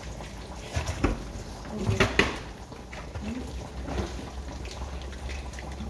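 Metal tongs clacking against a frying pan and a stainless steel bowl as fried chicken wings are lifted out, a handful of sharp knocks, the loudest about one and two seconds in, over a low steady hum.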